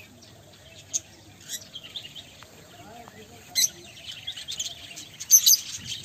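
A flock of small parrots chirping and chattering in many quick, overlapping calls, with louder bursts about three and a half seconds in and near the end.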